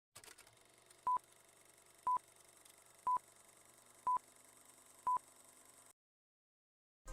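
Five short electronic beeps, all at one steady pitch, evenly spaced about a second apart.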